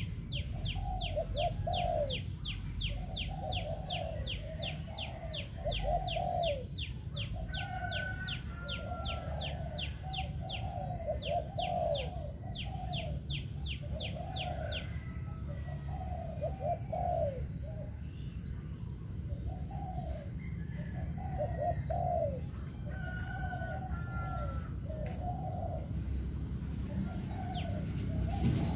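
Spotted dove cooing, repeating its short phrases of soft coos over and over, the song for which a decoy dove is kept. A rapid high ticking, about three a second, runs with it through the first half and fades out about halfway.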